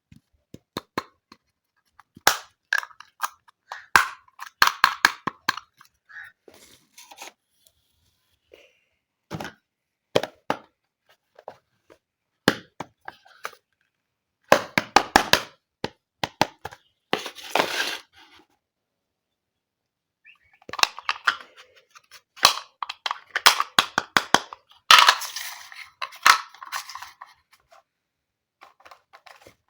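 Small plastic toy-kitchen pieces and their packaging handled close up: many sharp clicks and taps of hard plastic, with longer rustling stretches about halfway through and again in the later part.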